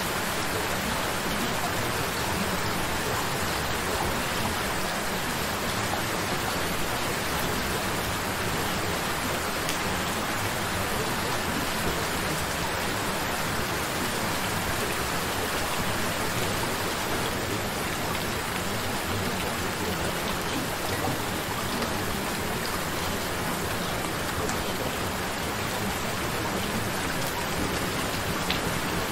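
Rain falling steadily: an even, unbroken hiss of drops that stays level throughout.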